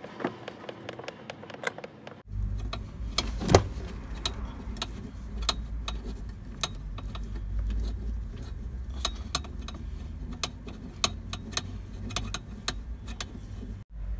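Irregular sharp clicks and taps of hand tools and screws as the truck's evaporator housing is screwed back in place. A low steady rumble comes in about two seconds in.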